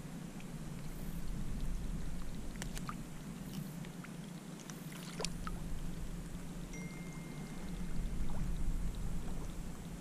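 Water lapping and trickling beside a kayak, with a few small clicks and taps about two to five seconds in as pliers work a hooked crab on the line.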